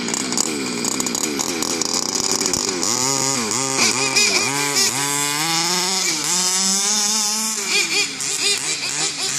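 Small two-stroke engines of radio-controlled racing cars, a petrol HPI Baja 5B and a nitro Kyosho GT2, revving up and down under throttle, their pitch rising and falling over and over. Near the middle one engine climbs in a long rising whine, then drops back.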